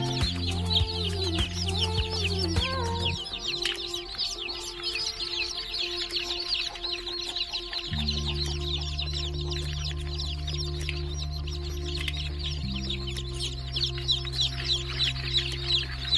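A group of chicks peeping continuously in quick, overlapping high chirps, over background music with long held low notes.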